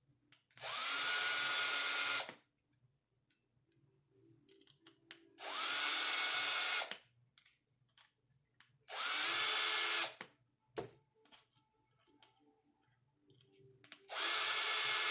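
Power drill with its torque clutch set low driving small screws into an RC wheel's hex adapter, in four short runs of about a second and a half each. Each run spins up quickly, holds steady, then stops, with light clicks in the gaps between.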